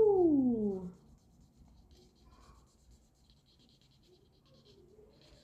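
A voice holds a note that slides down in pitch and stops about a second in. After that there is faint, light scratching: a cotton swab rubbed over a gold foil sticker to emboss a number into it.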